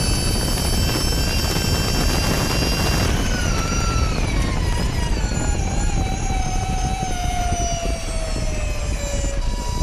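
Ducati MotoE electric race bike at speed, heard onboard: the electric motor's high whine over heavy wind rush. The whine holds steady, then falls in pitch from about three seconds in as the bike slows for a corner, and starts rising again right at the end.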